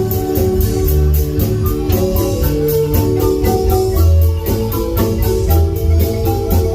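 A marimba ensemble playing a lively tune, its mallet notes over a deep bass line, with a quick, even beat ticking above.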